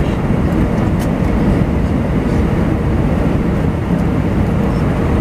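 Steady low rumble inside the passenger cabin of an Airbus A319-111 on final approach: its CFM56-5B jet engines and the airflow over the fuselage, with a faint steady hum in it.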